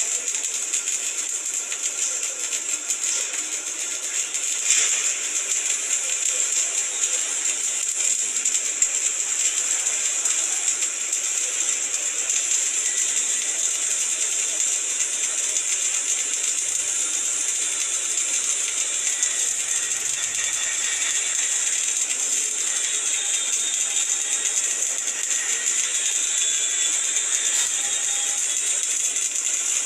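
Flux-cored arc welding (FCAW): the arc crackles and hisses steadily without a break while a fill or capping pass is laid.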